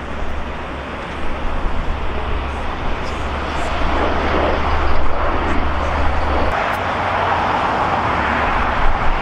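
Jet airliner engines at an airport: a steady rushing noise that grows louder over the first few seconds and stays loud.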